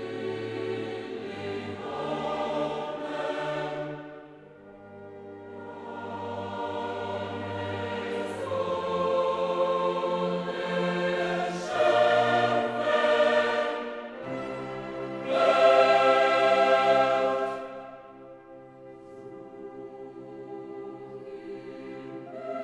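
Choral music: a choir singing long held chords, swelling loudest about two-thirds of the way through.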